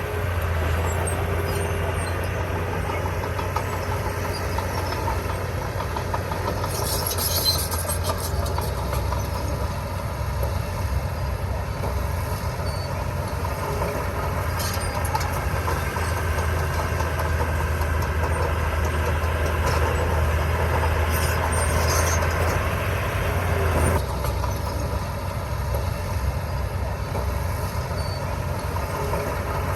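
Heavy construction machinery's diesel engine running steadily with a strong low hum, with brief high-pitched squeaks about seven seconds in and again near twenty-one seconds. The sound changes abruptly about twenty-four seconds in.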